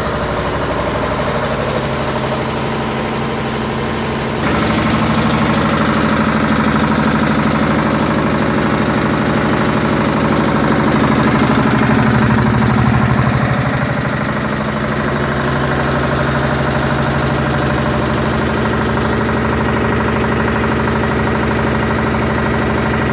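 A 7.5 kVA air-cooled diesel generator running steadily. About four seconds in, it suddenly gets louder, and it stays at that level with a small swell a little after ten seconds.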